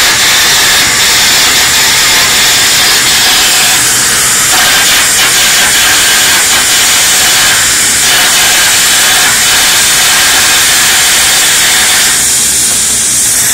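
Electric arc welding on heavy steel: a loud, steady hissing crackle of the arc.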